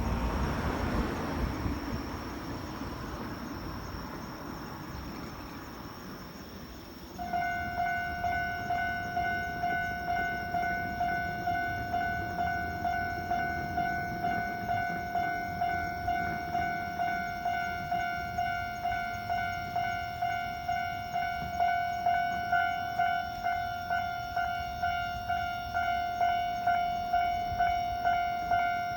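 Passing train noise fades away over the first several seconds. About seven seconds in, a railway level-crossing warning bell starts and keeps ringing with a steady ding about twice a second.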